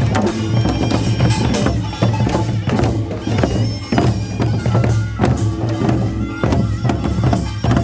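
Korean traditional folk music: a reedy wind instrument plays a sustained melody over struck drums and percussion.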